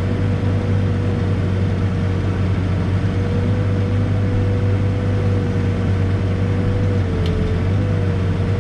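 Backhoe's diesel engine running steadily under a working load, with a constant high whine that sags briefly about seven seconds in.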